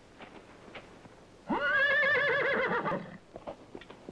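A horse neighs once: one long whinny with a rapidly wavering pitch, lasting about a second and a half and starting about a second and a half in.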